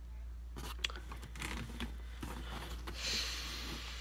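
Cardboard shipping box being handled close to the microphone: scattered light taps and crinkles, then a short scraping rustle about three seconds in.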